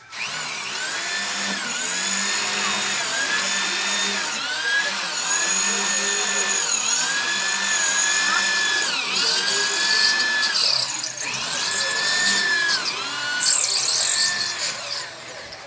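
Corded electric drill boring into a concrete wall. Its motor whine repeatedly speeds up and eases off, about once a second, as the bit works into the masonry, with a harsher grinding stretch near the end.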